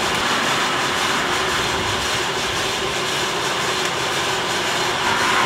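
Bideli 2 kg propane-fired drum coffee roaster running loud and steady with a charge of beans turning in the drum before first crack, its gas burner and air fan going, with a faint steady hum underneath.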